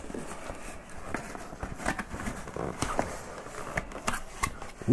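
Light rustling and scattered soft clicks of a cardboard product box and its packaging being handled and opened by hand.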